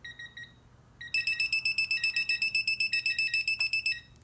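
Digital torque wrench beeping as the preset 100 ft-lb is reached: a few short, quieter beeps, then about a second in a rapid run of louder, higher-pitched beeps that lasts about three seconds.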